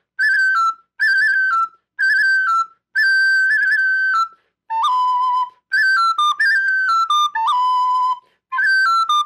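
Recorder (flauta dulce) playing short, separate phrases in an Irish-whistle style, each note opened with a quick grace-note flick above it before settling and stepping down. The ornament is a slipped-in G or A on the F sharp.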